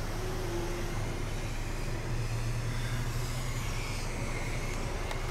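Volvo car's running engine and road noise heard from inside the cabin: a steady low hum under an even rush of noise.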